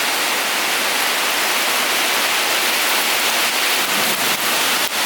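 Heavy rain pouring down in a thunderstorm, a loud steady hiss, with a few soft clicks near the end.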